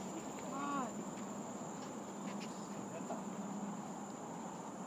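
Steady high-pitched chorus of crickets and other insects in tropical forest, with a short vocal sound about half a second in.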